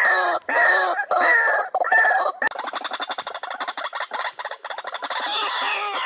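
White-breasted waterhen calls from a lure-call recording: a repeated 'kruak' call about two to three times a second. About halfway the calls break off sharply into a fast rattling chatter, and the repeated calls come back near the end.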